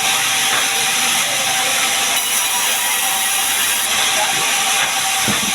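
Large sawmill saw running, a loud steady hiss of noise with a faint high whine held throughout.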